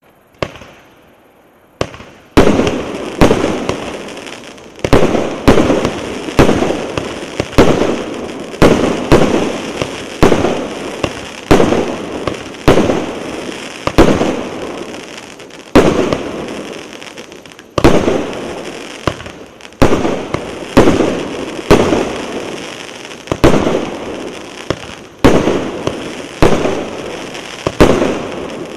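A 238-shot 'Big Ben' consumer fireworks cake firing: after a couple of small pops, a steady run of sharp shots starts about two seconds in, about one and a half a second, each followed by a fading tail.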